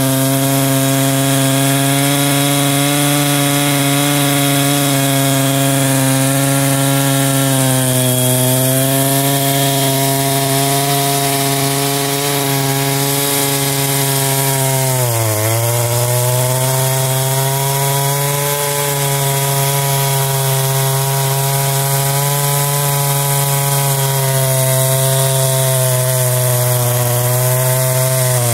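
Husqvarna two-stroke chainsaw running at high speed under load as it cuts a slab from a thick log. The engine note is steady but bogs down sharply about halfway through, then picks back up.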